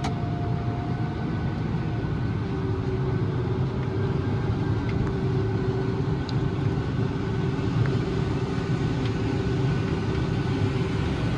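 Farm tractor engine running steadily, with a thin steady whine over the drone that drops to a lower pitch about two seconds in.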